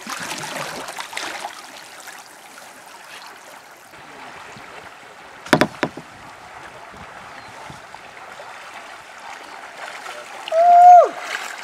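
Kayak paddles dipping and splashing in a flowing river, with a steady rush of water. A couple of sharp knocks come about halfway through, and near the end a short, loud, high call holds its pitch briefly, then drops as it ends.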